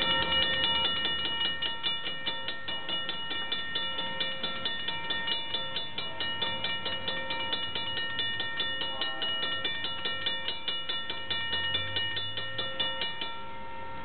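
NJ Transit GP40 locomotive's bell ringing steadily in rapid, even strokes, stopping about 13 seconds in.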